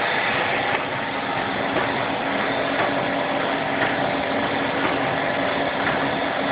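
An Aster machine running steadily on a test run: a continuous even mechanical whir with a few faint clicks.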